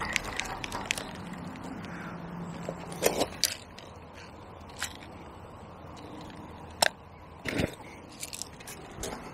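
Fishing reel being wound in with a low steady whirr, which stops with a loud knock about three seconds in. Then a spod is scooped and packed from a bucket of dry groundbait and pellets: scraping and crunching, with a few sharp knocks.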